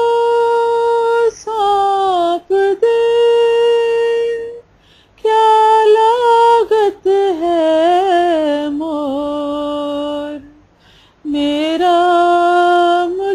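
A woman's solo voice singing unaccompanied in three long phrases. She holds drawn-out notes and ornaments them with wavering glides, and the second phrase sinks lower in pitch before she pauses for breath.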